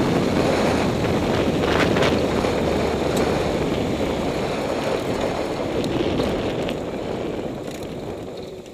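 Wind rushing over the camera microphone with the Honda CBR954RR's inline-four engine running underneath as the bike rolls slowly through the paddock. The sound fades over the last few seconds as the bike slows down.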